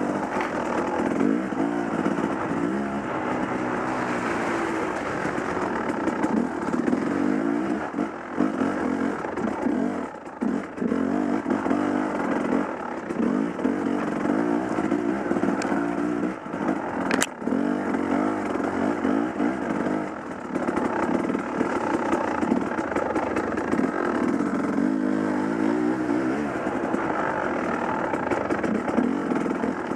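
Dirt bike engine revving up and down continuously as it is ridden along a forest single-track trail, the pitch rising and falling with the throttle, with a few brief drops in engine noise and one sharp click about halfway through.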